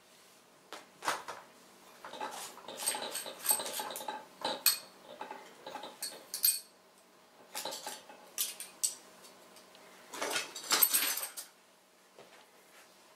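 Metal parts of an LED lamp module clinking and knocking as the round finned aluminium heatsink assembly is handled and set down on a hard surface. The clatters come in short clusters with pauses between them and stop about a second before the end.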